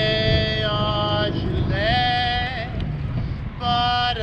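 A gondolier singing an Italian song in long held notes, some with vibrato, over a steady low rumble of wind and water.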